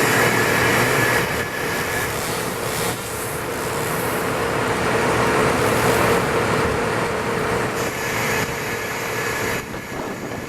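Engine-driven machinery running steadily with a constant hum, easing down a little about a second in and fading slowly, with a further drop near the end.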